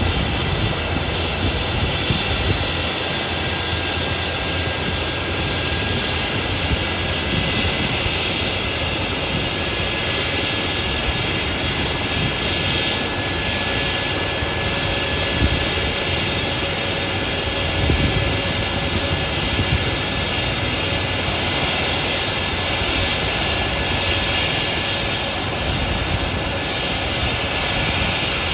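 Rescue helicopter's turbine engines running steadily on the ground with the main rotor turning before lift-off: an even turbine whine with steady high tones over rotor and engine noise. A faint high tone climbs slowly in the first few seconds.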